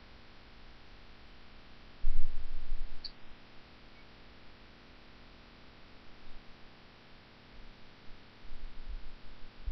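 Handling noise: a dull low bump about two seconds in, a single light click a second later, and a few softer low bumps near the end, over steady hiss.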